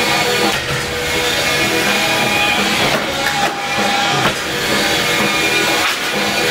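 Background music, a rock track with guitar and drums.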